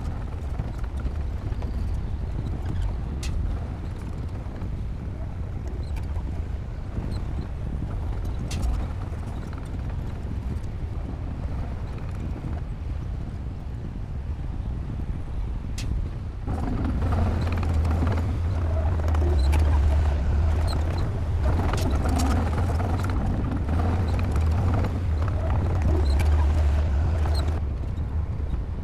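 Crawler bulldozer's diesel engine running with a steady low drone, growing louder and fuller a little past halfway, with occasional sharp clicks.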